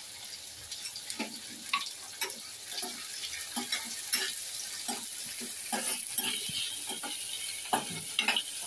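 Sliced onions, green chillies and garlic sizzling in hot oil in a kadai, with a spoon scraping and clicking against the pan as they are stirred.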